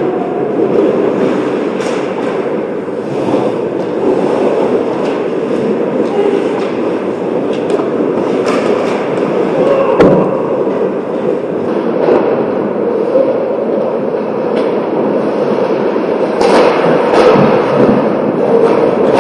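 Ice hockey play heard close to the goal: a steady scraping of skate blades on the ice, broken by sharp clacks of sticks and the puck. The loudest crack comes about ten seconds in.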